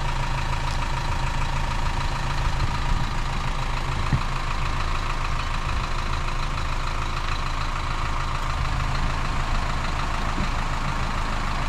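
Isuzu truck's diesel engine idling steadily.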